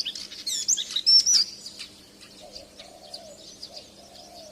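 Daurian redstart singing: a run of quick, high chirps and whistled notes, loudest in the first second and a half and fainter after. A faint, low, wavering note sounds underneath in the second half.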